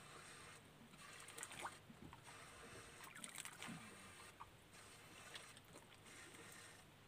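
Near silence: a faint steady hiss with a few soft clicks, about a second and a half in and again around three and a half seconds in.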